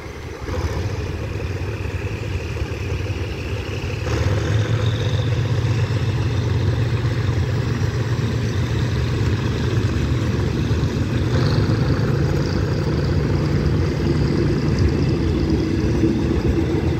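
Passenger train pulling out of a station, its coaches rolling past with a steady low rumble of wheels on the rails. The rumble grows louder about half a second in and again about four seconds in as the train gathers speed.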